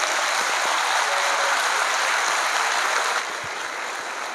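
Audience applauding, a dense steady clapping that drops to a lighter patter about three seconds in.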